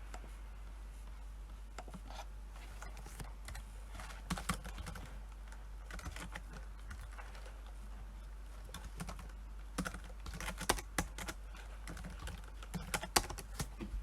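Computer keyboard being typed on in irregular bursts of key clicks, sparse at first and denser about two thirds of the way in and near the end, over a low steady hum.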